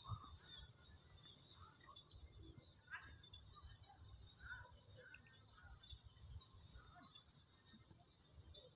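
Quiet, steady high-pitched chorus of insects, with a quick run of four short chirps near the end.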